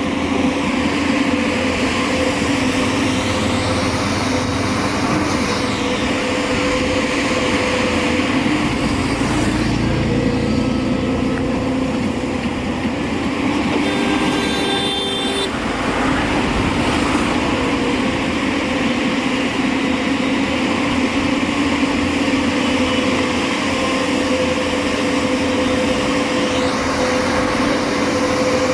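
JCB backhoe loader's diesel engine running steadily while it digs, with a short higher-pitched tone about halfway through.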